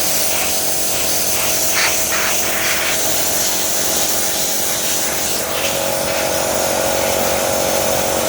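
A power tool or machine running steadily: a constant hum with a hiss over it, its tone growing stronger about five and a half seconds in.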